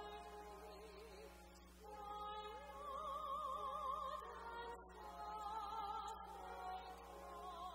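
A faint solo high voice sings a slow hymn with a wide vibrato, holding long notes over sustained accompanying chords.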